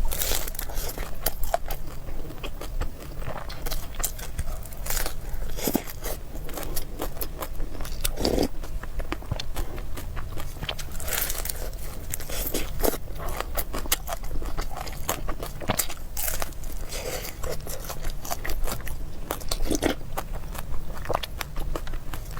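Close-miked eating: a person biting and chewing crunchy food, a dense run of irregular crunches and crackles with wet chewing between them.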